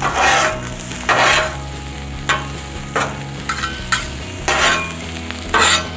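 Two metal griddle spatulas scraping across a hot Cuisinart 360 flat-top griddle as they toss sliced onions, with about eight quick scrapes spread unevenly. Under them is the steady sizzle of onions and burger patties frying.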